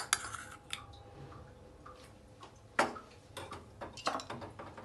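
A spoon clicking and tapping against a small bowl and the aluminium cooking pot as pickle is scraped off onto rice: a few light clicks, one sharper knock just before the middle, then a quick run of ticks.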